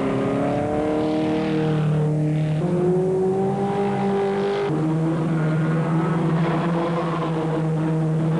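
Single-seater racing car engines running hard as a string of cars accelerates out of a corner. The engine note rises, drops abruptly about two and a half seconds in and again near five seconds, the way it does at an upshift, then holds steady, with other cars' engines overlapping.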